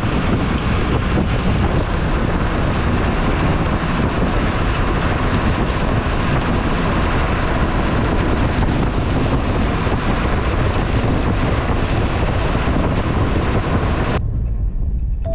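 Steady rushing of wind and road noise from a moving MSRTC bus, with a heavy low rumble and wind buffeting the microphone. The rushing breaks off suddenly near the end.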